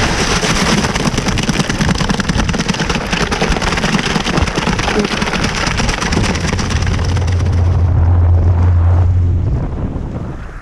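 Jet ski running across open water, its engine and hull noise mixed with wind buffeting the microphone. A steady low hum comes in about six seconds in, and the noise eases off near the end as the ski slows.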